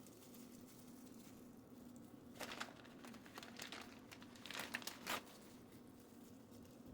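Faint crinkling rustles from something being handled, in short spells about two and a half seconds in and again around four and a half to five seconds in.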